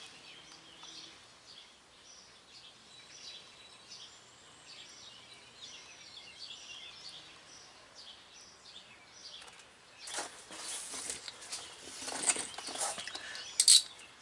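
Faint birds chirping in the background. About ten seconds in come louder rustling and scraping sounds of handling, with a sharp click near the end.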